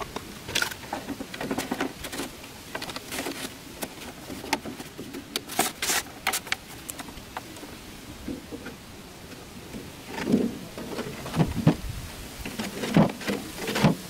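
Handling noise from a clear plastic jar and its plastic screw lid: irregular light clicks, taps and rustles, with a few heavier knocks near the end as the jar is set down over a hole in dry dirt.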